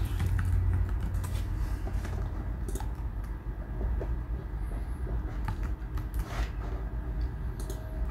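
Scattered clicks of a computer keyboard and mouse over a steady low hum.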